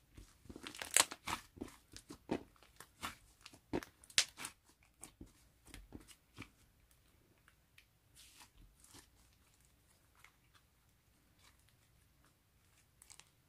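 Thick white crunchy slime being kneaded and squeezed by hand, giving off dense crackling pops and clicks that thin out to scattered clicks after about six seconds.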